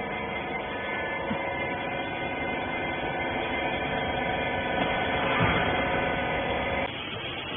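Hydraulic rag baler's electric pump motor running with a steady hum, cutting off abruptly about seven seconds in.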